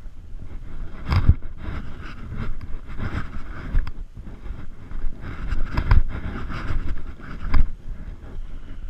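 Footsteps and scrub brushing against a body-worn camera as its wearer climbs through hillside scrub: irregular thumps and rustling, with wind on the microphone.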